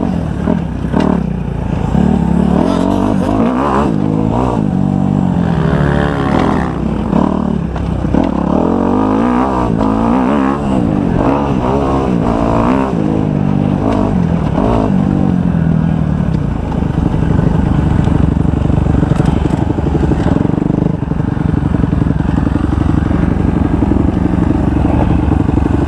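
Kawasaki 250 motocross bike's engine revving up and falling back again and again as it is ridden round the track, then running at a steadier pitch for the last ten seconds or so.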